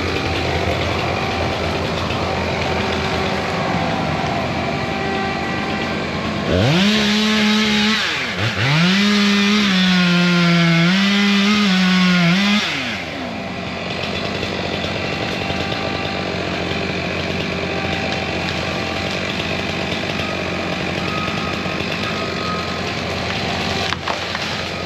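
Chainsaw revved hard for about six seconds, starting some six seconds in, with a short dip after the first two seconds, then dropping back. Under it an engine runs steadily throughout.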